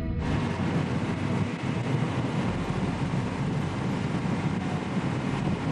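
Motorboat with twin outboard engines running at speed across open water: a steady rush of engine, wind and water noise that starts suddenly just after the music cuts off.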